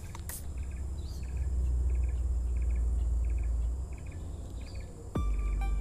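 Insects chirping in short pulsed bursts about every two-thirds of a second over a steady high-pitched drone, with a low rumble through the middle. Music starts near the end.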